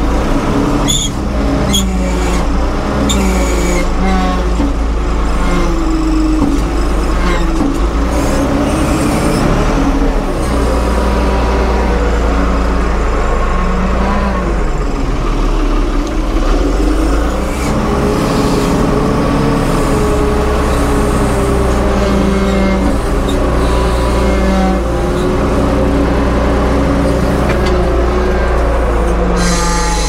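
Diesel engine of a tractor loader-backhoe working under hydraulic load, its pitch rising and falling as it revs, with a few metal clanks in the first few seconds.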